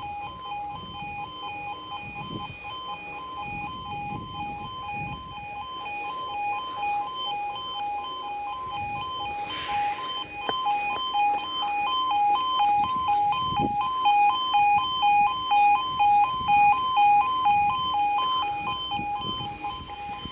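Level crossing audible warning alarm: a two-tone yodel rapidly alternating between two pitches, sounding continuously while the crossing is closed for an approaching train. It grows louder and more pulsing in the second half.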